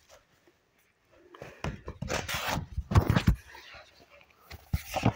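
Handling noise close to the microphone: rustling and knocks as a book and the recording phone are moved about, in a cluster from about a second and a half to three and a half seconds in and again briefly near the end.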